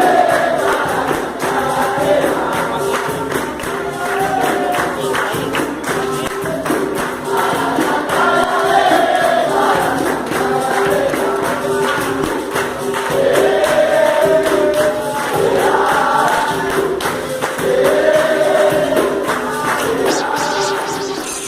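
Capoeira roda music: a berimbau repeating a short steady note under a pandeiro's rhythm, with a group singing a call-and-response chorus. It begins to fade out near the end.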